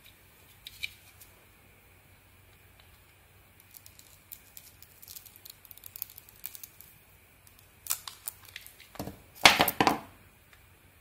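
A thin coloured outer layer being peeled and scraped off a bar of soap with a snap-off utility blade: scattered small crackles and scrapes, then a dense, louder run of scraping strokes about a second before the end.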